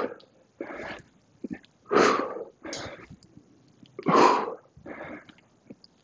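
A man breathing hard under exertion during dumbbell split squats: a loud, forceful exhale about every two seconds, each followed by a quieter inhale, in time with his squat reps.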